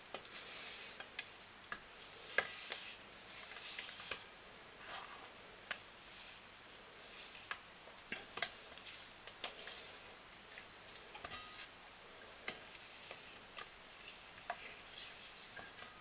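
Thick, wet ceramic slurry being smeared and slapped by hand onto a graphite crucible: soft irregular squelches and scrapes with scattered small clicks and taps.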